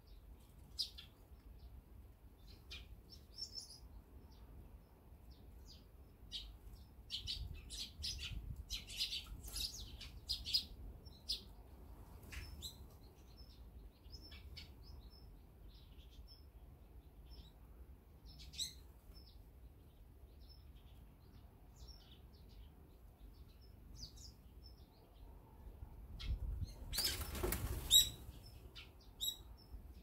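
Eurasian tree sparrows at a seed feeder chirping in short, high notes, thickest in the first third. Near the end comes a louder rush of wing flapping.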